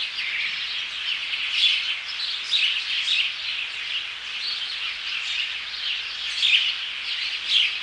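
A chorus of many small birds chirping and chattering, with dense overlapping chirps and a louder call standing out every second or so.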